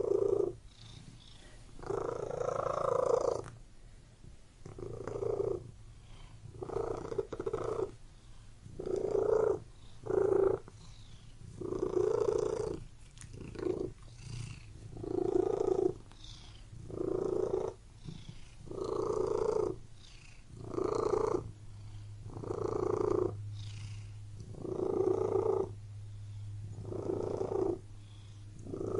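Domestic cat purring, swelling and fading with each breath about every two seconds.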